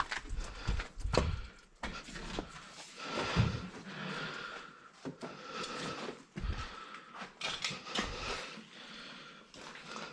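Irregular knocks, clicks and clatter of scrap electronics such as cash registers being handled and moved.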